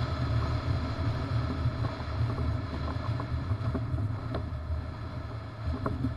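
Low, steady rumble of wind on the microphone and road noise from a bass boat being towed on its trailer behind a pickup truck, with a few light rattles near the end.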